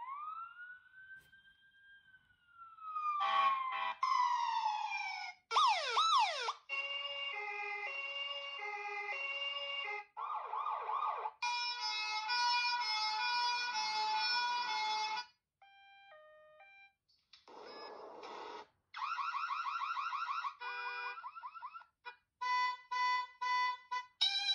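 A rugged phone's loudspeaker playing a run of preset electronic alert tones one after another as each is picked from a list: first a siren-like glide that rises and then slowly falls, then warbling sweeps, repeated beeping patterns and short chimes, each cut off when the next one starts.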